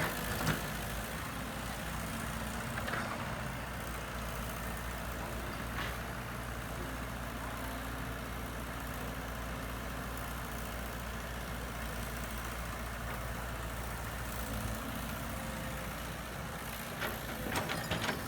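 Heavy equipment engine running steadily at a low, even note, which changes about fifteen seconds in. A few short knocks come near the end.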